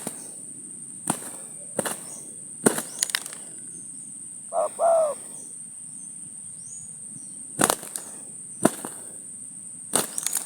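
Spotted dove cooing: two short, arched coo notes close together about four and a half seconds in. A steady high insect drone runs underneath, with several sharp clicks scattered through.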